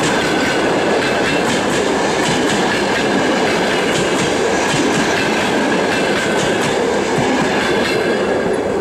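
Russian long-distance passenger coaches of an express train rolling past at speed: a steady loud rumble of steel wheels on rail, with clickety-clack clicks over rail joints and a steady high note over it.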